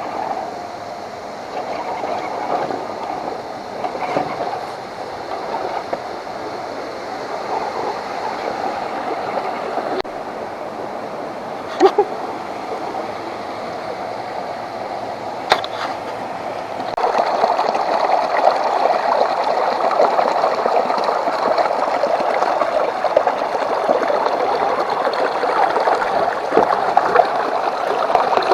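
A 1:10 scale RC crawler truck's electric motor and gears running as it drives through water, with steady splashing and churning. It grows louder about two thirds of the way in, and there are two sharp clicks before that.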